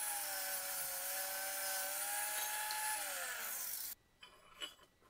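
Angle grinder with a wire wheel running against a rusty antique hatchet head, scrubbing off the rust with a steady whine over a harsh hiss. The pitch sags after about three seconds, and the sound cuts off abruptly just before four seconds, leaving faint handling ticks.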